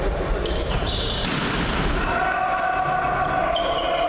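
Volleyball rally in a sports hall: sneakers squeaking on the court floor and a sharp hit of the ball a little over a second in, echoing around the hall.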